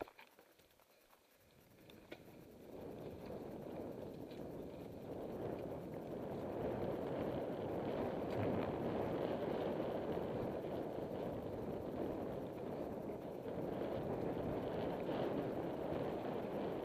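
Mountain bike descending a dirt singletrack: an even rushing noise of wind over the camera microphone and tyres rolling on dirt, building up about two seconds in as the bike gathers speed and then holding steady, with a few faint ticks and rattles.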